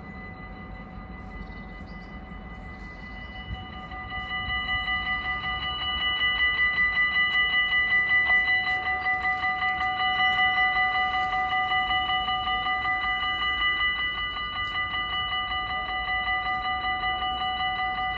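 Warning bells of a Dutch automatic half-barrier level crossing ringing in rapid, even strokes that grow louder about four seconds in. They signal an approaching train and cut off suddenly near the end, once the barrier arms are fully down.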